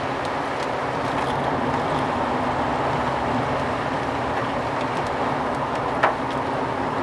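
Steady road and engine noise of a car in motion, heard from inside the cabin. A single sharp knock sounds about six seconds in.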